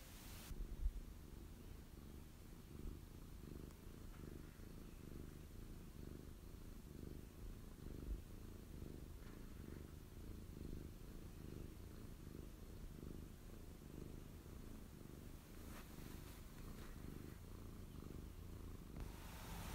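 Tortoiseshell cat purring steadily and rhythmically close to the microphone, with a few brief knocks about a second in.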